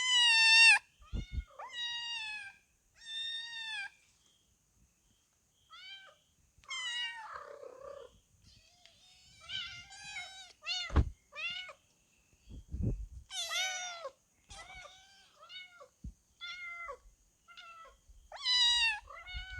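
Kittens meowing over and over: short, high-pitched calls that sometimes overlap, as though from more than one kitten. There are a couple of dull thumps about two thirds of the way through.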